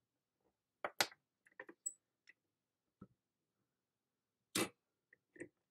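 Scattered light clicks and knocks of a stamping platform's hinged clear acrylic lid being closed over the stamp and pressed down by hand. The two loudest knocks come about a second in and a little past the middle.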